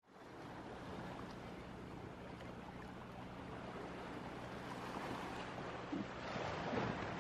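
Faint waterside ambience: a low, steady engine hum under a soft hiss of wind and water. The hum fades about six seconds in.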